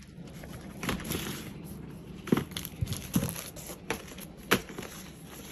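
Small paper product boxes and plastic wrapping being handled and pulled out of a cardboard carton: rustling and crinkling with a few light knocks as boxes bump together.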